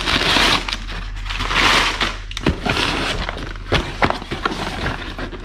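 Crumpled brown kraft packing paper rustling and crinkling in bursts as a hand digs through a cardboard shipping box, with a few sharp knocks of cardboard boxes being handled.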